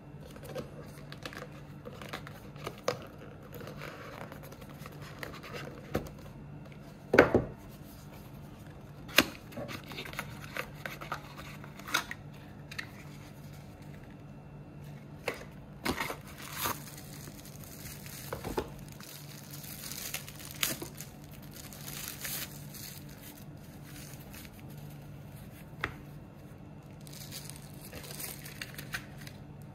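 Hands handling cardboard and paper packaging: card rustling, sliding and crinkling, with scattered sharp knocks and taps as pieces are set down on a glass table. The loudest knock comes about seven seconds in.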